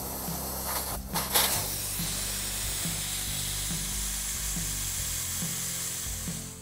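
Compressed air rushing out of a car tire's open valve stem with its Schrader valve core removed: a steady loud hiss that surges about a second in as the core comes free. Background music with a steady beat underneath.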